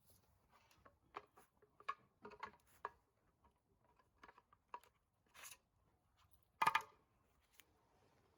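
Scattered light clicks, taps and short scrapes of small objects being handled, with one louder clatter about two-thirds of the way through.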